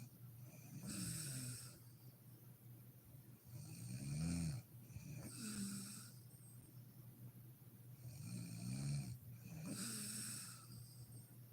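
A sleeping woman snoring in slow, regular breaths. Each vibrating snore, wavering in pitch, is followed by a breathy exhale, and the cycle repeats about every four to five seconds, a little over two times.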